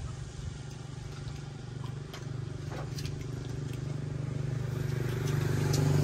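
A motor vehicle's engine running steadily and growing louder as it approaches. A few light clicks of chopsticks against the dishes come over it.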